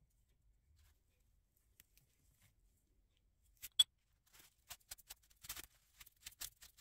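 A single sharp clink of a metal part against a glass jar of acetone about four seconds in, with a brief ringing tone. After it come light, irregular rustling and scraping sounds as a threaded shaft is wiped with a paper towel.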